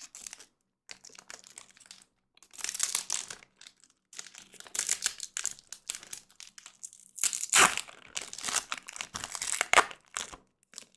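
Foil Pokémon TCG booster pack wrapper crinkling and tearing as it is worked open by hand, in irregular bursts with the loudest rip about two-thirds of the way in.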